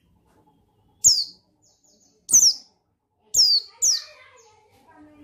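White-eye (pleci) giving four sharp, high calls that drop quickly in pitch, spaced about a second apart, with a light knock at each and faint soft chirps in between.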